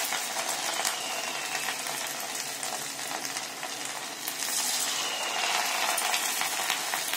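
Batter-coated cauliflower pieces deep-frying in hot oil: a steady sizzle with a few faint ticks, growing slightly louder about halfway through.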